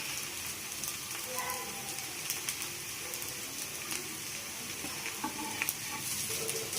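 Rava adai (semolina batter flatbread) frying in oil on a pan: a steady sizzle with small scattered crackles as it crisps on its second side.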